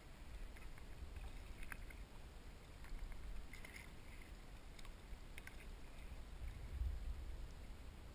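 Kayak paddle strokes: the blade dipping and pulling through the water, with small irregular splashes and drips over a low rumble.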